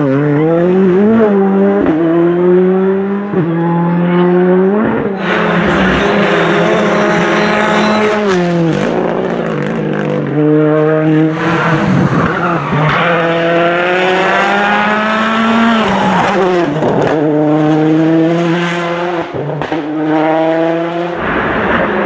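Ford Fiesta R5 rally cars' turbocharged four-cylinder engines driven hard through tight corners, one car after another. Each engine revs up in steep climbs broken by sudden drops at gear changes and lifts.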